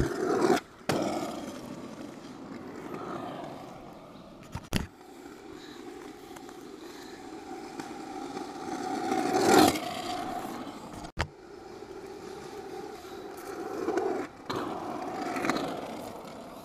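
Small motor scooter engines running as scooters ride past on asphalt, swelling to a loud peak about ten seconds in and again near the end, with tyre noise on the road surface. The sound breaks off abruptly several times.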